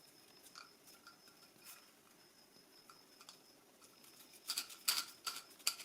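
Sandpaper being handled and pressed onto a wooden drum: faint scattered crackles and rustles, with a quick run of sharper, louder crackles near the end.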